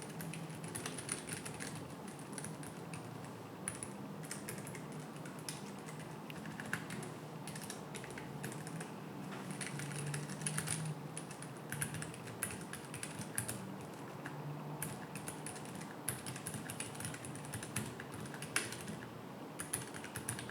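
Keychron K7 low-profile mechanical keyboard being typed on: a steady, irregular patter of quick key clicks.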